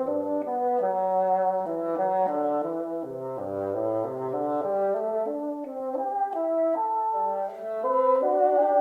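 Background music: a brass ensemble playing several parts together in moving chords.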